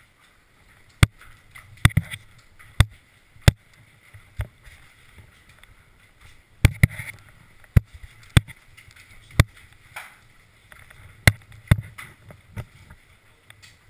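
Airsoft guns firing single shots: about a dozen sharp cracks at uneven intervals, roughly one a second, some in quick pairs. Under them is a low rumble of movement and wind on the camera microphone.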